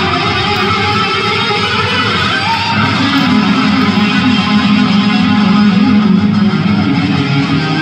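Live rock band playing loud: distorted electric guitar over drums and bass, with a few bent guitar notes in the first seconds.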